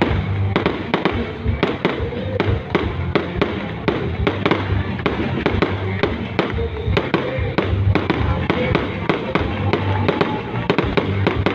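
Fireworks going off in a rapid, irregular string of sharp bangs and crackles, several a second, with music playing underneath.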